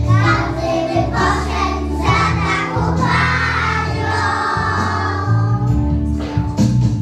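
A group of young children singing a song together over an instrumental backing track with a bass line that moves in steps.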